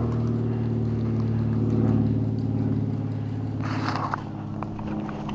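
A steady low engine hum that fades after about three seconds, with a short rustling crunch near the end.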